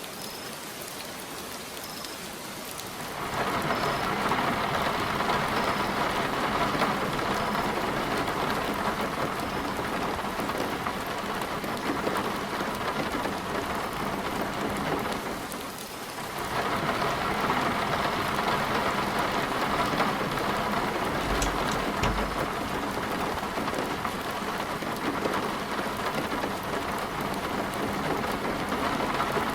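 Heavy rain pouring down in a storm, growing louder about three seconds in, easing briefly around the middle and then pouring hard again.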